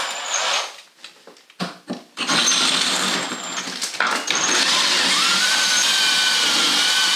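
Electric drill boring out a pipe hole with a larger bit, enlarging it for PEX pipe. It runs briefly, stops, gives a couple of short bursts, then runs steadily with a faint whine from about two seconds in.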